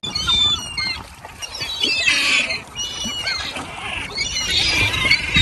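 A flock of gulls squawking in many short, high-pitched calls as they swoop in for bread, the calls coming in clusters near the start, about two seconds in, and near the end.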